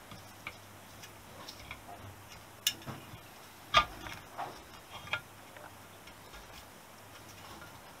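Scattered, irregular light clicks and knocks of tools and small metal engine parts being handled on a workbench. The sharpest knock comes a little under four seconds in.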